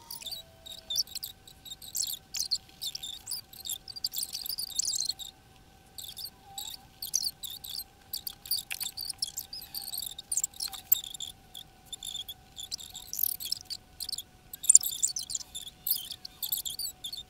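Pen tip scratching across paper in quick, irregular drawing strokes, with short pauses between them.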